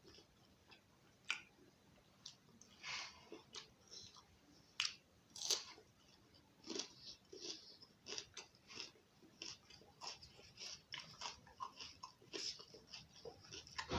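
A person chewing and smacking their lips while eating chicken curry and roti. The sound is irregular short mouth clicks and smacks with brief gaps between them.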